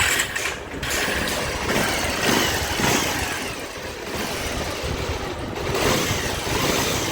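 Bajaj Pulsar 150's single-cylinder engine starting up and then idling steadily. It runs smooth, its scissor gear now set properly and the earlier vibration gone.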